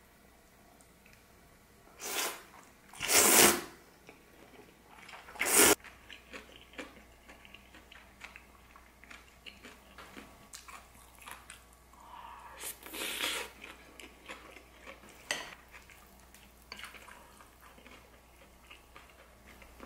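Close-up eating of mixed noodles: chopsticks and a wooden spoon click against a ceramic bowl, with chewing, and a few loud short noisy bursts, the loudest about three seconds in and another about thirteen seconds in.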